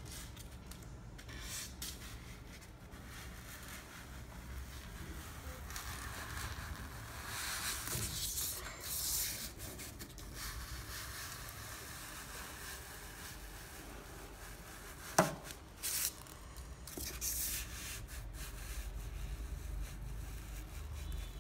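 A styrofoam block being slid over a cardboard box top and through a battery-heated hot wire: soft rubbing and scraping, louder for a few seconds about a third of the way in, with a sharp click about two-thirds through.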